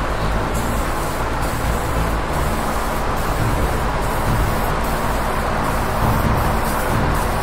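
Steady rushing noise of a spray booth's extraction fan running, with a low hum beneath it.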